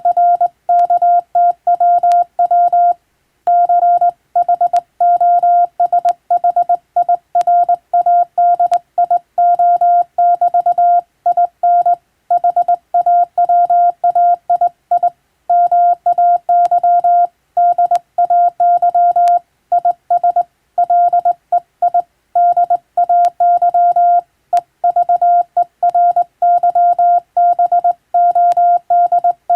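Morse code sent by hand on a telegraph key, heard as a steady tone of about 700 Hz keyed on and off in dots and dashes, with short gaps between characters and words.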